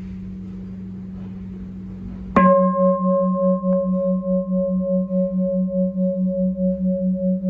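A 40 cm six-hand Huế bowl bell (chuông gia trì), cast of copper and tin, already ringing with a low hum, is struck once with its striker about two and a half seconds in. It then rings on loudly with a low tone and a higher overtone that waver about four times a second, with fainter higher overtones fading away.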